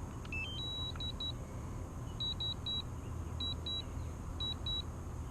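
Electronic alert beeps: a quick rising three-note chirp, then short high beeps in pairs about once a second, over a steady low rumble.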